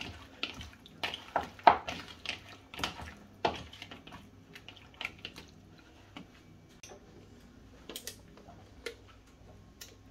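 Raw chicken pieces being mixed by hand in a wet marinade in a plastic bowl: short wet squelches and knocks against the bowl, busy for the first few seconds, then sparser.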